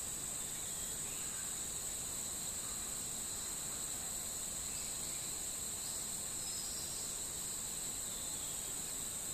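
A continuous high-pitched insect chorus, a steady shrill drone that does not change.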